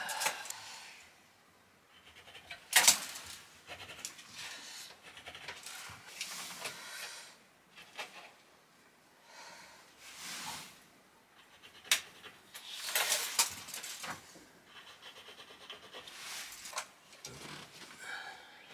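Breathing and handling noises from someone kneeling on a plywood floor, measuring with a tape measure and marking with a pencil: irregular rustles and scrapes, with a sharp click about three seconds in and another about twelve seconds in.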